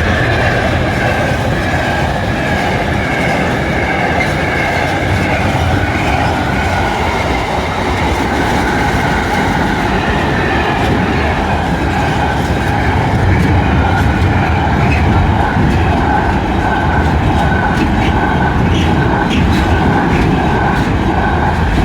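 A freight train's wagons rolling past at speed behind a Class 66 diesel locomotive, with a steady, loud rumble and rattle of wheels on the rails. A thin high squeal rides over it throughout, and sharper wheel clicks come near the end.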